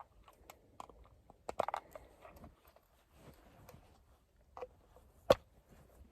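Plastic dome-light housing being pried out of a car headliner: scattered small clicks and scrapes of plastic against plastic, with one sharp snap about five seconds in as the trim gives.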